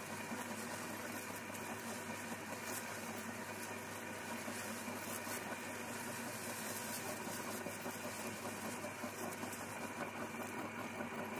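Belt-driven electric meat grinder running steadily, its auger crushing crunchy snacks fed into the hopper.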